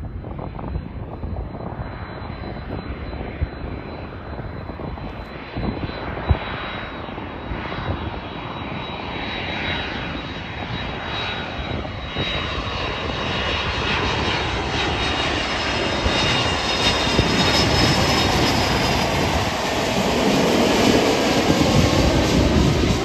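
Twin-engine jet airliner on landing approach, gear down: the turbofan engines' rumble and high whine grow steadily louder as it closes in. The sound peaks as it passes low overhead near the end, with a sweeping shift in tone.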